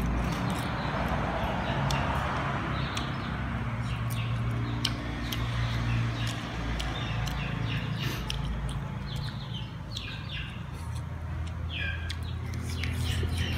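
Chewing, lip-smacking and finger-licking clicks from a man eating spicy fried chicken wings with his fingers, with short high bird chirps in the background, more of them in the second half.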